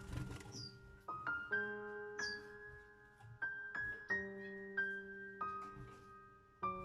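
Background piano music: a slow melody of single sustained notes, each struck and left to ring and fade.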